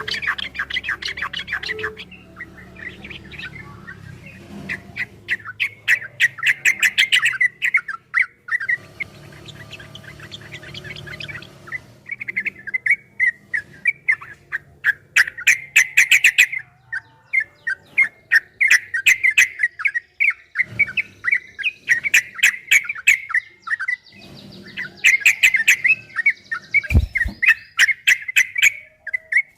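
Yellow-vented bulbul (trucukan) singing a long 'ropel' song: rapid runs of quick, bubbling chattering notes repeated in bursts with short pauses between them.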